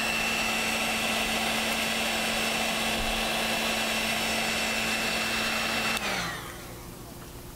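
Heat gun running steadily, blowing hot air to shrink green heat-shrink tubing over a cable. About six seconds in it cuts off and its fan winds down with a falling whine.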